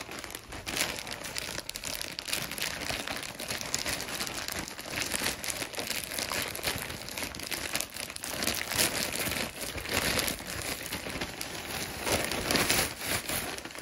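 Yellow plastic poly mailer bag crinkling and rustling continuously as hands open it and rummage inside.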